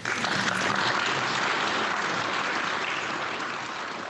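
Audience applauding, a dense clapping that slowly fades.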